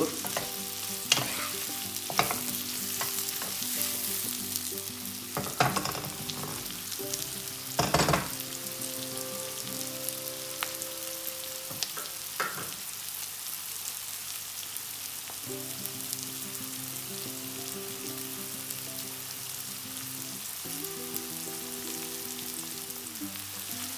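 Sliced onions sizzling steadily in hot sunflower oil in a granite-coated wok. A wooden spatula stirs them, scraping and knocking against the pan a few times, loudest about a third of the way through.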